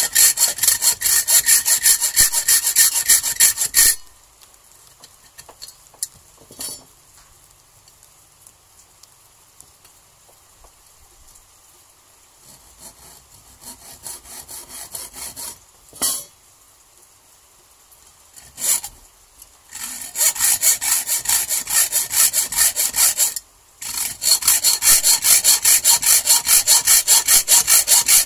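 Hacksaw cutting into a flattened welding rod in rapid, even back-and-forth strokes, notching it for a lure's barb. The sawing stops about four seconds in, leaving only a few light clicks, then starts again about twenty seconds in, with a brief break near the end.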